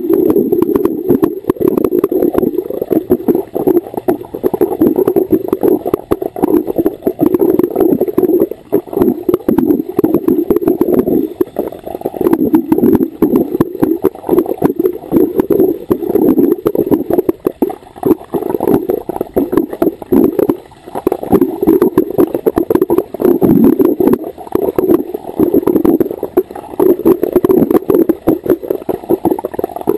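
Scuba regulator exhaust bubbles heard underwater: a loud, muffled, crackling bubbling that comes in bursts of a few seconds, each breath out followed by a brief lull.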